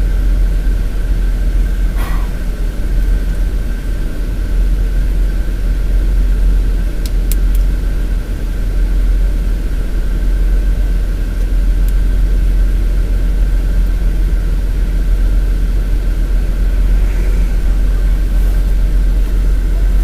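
Motor vehicle running with a steady low rumble, as if idling at a traffic light, with a couple of brief clicks about 2 and 7 seconds in.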